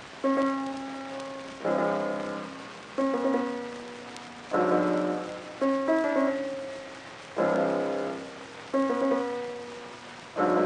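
Piano music: a slow run of chords, each struck sharply and left to fade, about one every second and a half.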